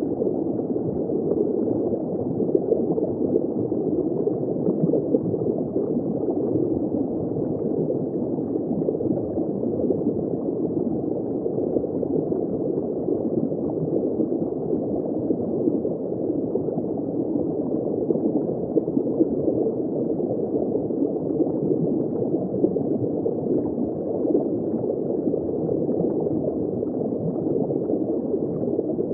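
Underwater ambience of water bubbling and gurgling, heard from just below the surface: a steady, muffled bubbling with no high end.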